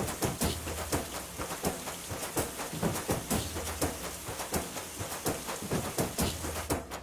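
Shower water spraying down and splashing on a person's head and shoulders, a steady hiss broken by many irregular drips and splats.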